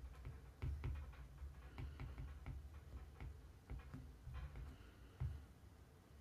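A stylus tapping and scratching on a tablet screen as a phrase is handwritten and underlined: faint, irregular ticks and soft knocks.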